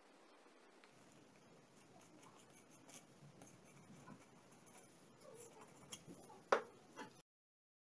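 Faint handling sounds of gloved hands and a super glue bottle being squeezed along the joint of an aluminium plate and a steel rod, with small rubs and ticks and one sharper click near the end, after which the sound cuts off suddenly.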